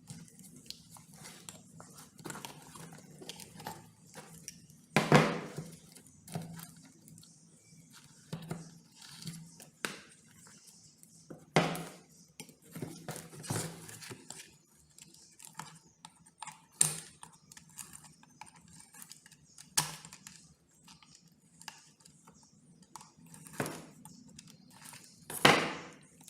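Irregular clinks, scrapes and knocks of small metal parts and tools being handled on a work surface, the loudest about five seconds in and near the end, over a faint steady hum.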